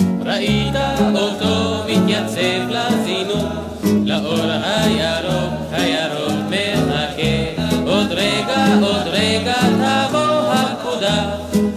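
Folk-style song music: plucked guitar-like strings over a stepping bass line, with a wavering melody line above.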